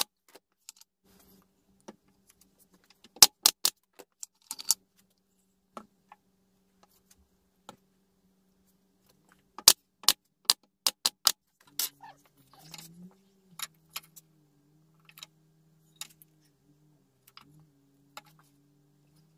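Nail gun firing brads into thin pine trim strips: a handful of sharp shots about three seconds in, then a quick run of about six more around ten seconds in, with fainter knocks after, over a faint steady hum.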